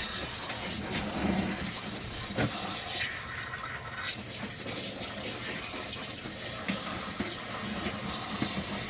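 Water running from a hose into the wash tub of a portable twin-tub washing machine, filling it with rinse water. The flow dips for about a second roughly three seconds in, then carries on steadily.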